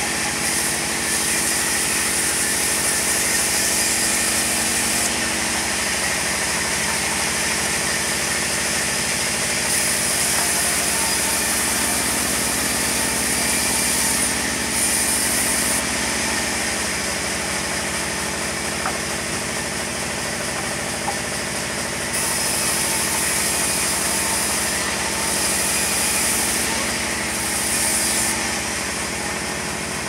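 Large vertical band sawmill running steadily as a timber slab is fed through the blade: a dense, unbroken machine drone, with a high hiss from the cut that drops out and returns several times.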